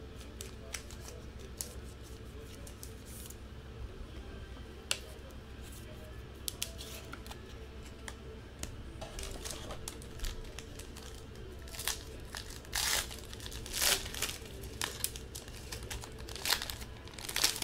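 A trading-card pack wrapper crinkling and tearing as it is handled and opened. There are a few light clicks at first, then the rustling grows denser and louder from about halfway through, over a steady low hum.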